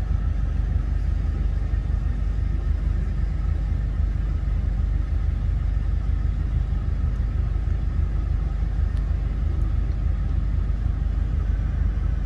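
Steady low rumble of highway traffic and idling vehicles.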